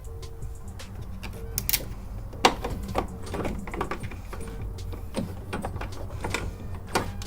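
Irregular clicks, rattles and light knocks from handling plastic parts and wiring in a car's engine bay, with a quick run of clicks in the middle, over a steady low hum.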